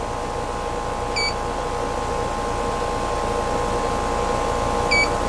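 Outdoor air-conditioner condensing unit running with a steady hum, its condenser coil blocked off to push the condensing temperature up to about 118°F. A digital refrigerant manifold gauge gives two short beeps as its buttons are pressed, about a second in and near the end.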